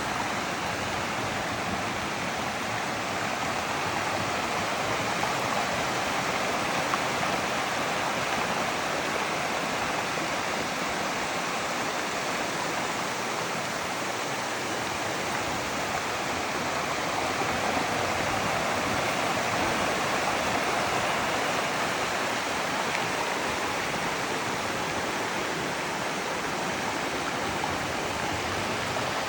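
Runoff water rushing steadily through a flood control channel, a continuous even rush with no breaks.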